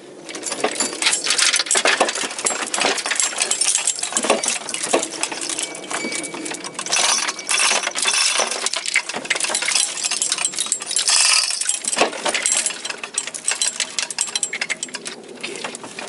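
Steel hand tools and metal parts clinking and rattling against each other: a dense, irregular run of sharp metallic clicks and knocks while the gearbox mounting is worked on.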